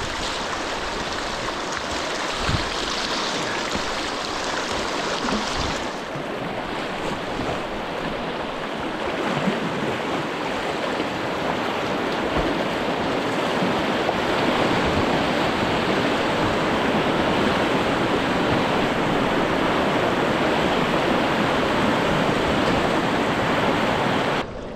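White water rushing and splashing around a kayak as it runs down a shallow, rocky river rapid; the rush grows louder in the second half and cuts off abruptly just before the end.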